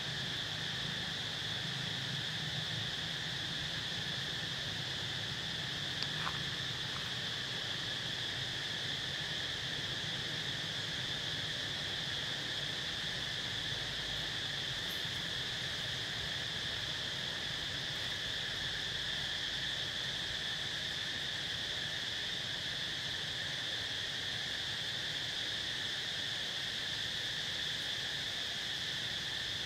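A chorus of insects keeps up a steady, unbroken high drone, with a brief faint chirp about six seconds in.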